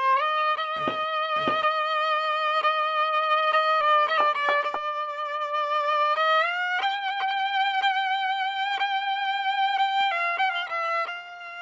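Solo violin playing a slow melody of a few long held notes with vibrato, stepping up in pitch partway through and moving through a few quicker notes near the end.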